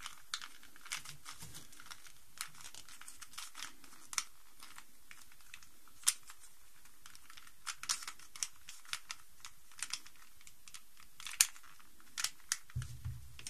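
Scattered sharp plastic clicks and clacks of a Rubik's cube being turned and handled as it is taken apart, with a dull thump near the end.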